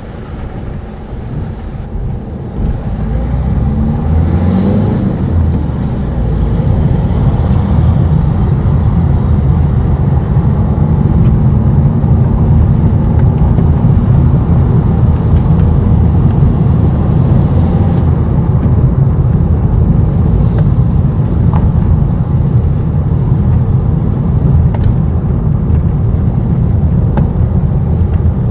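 Car engine and tyre noise heard from inside the cabin. The engine note rises as the car picks up speed a few seconds in, then settles into a steady low drone of driving along a lane.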